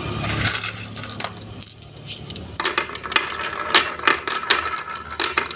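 Marbles rolling and clacking along a marble run track: a quick, irregular series of sharp clicks and rattles, starting about half a second in.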